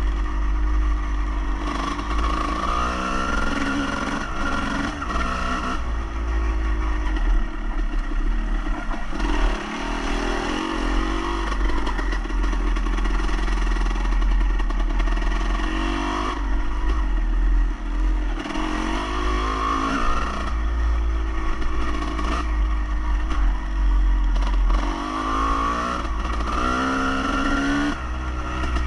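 An engine running and revving, its pitch rising and falling every few seconds, over a heavy low rumble.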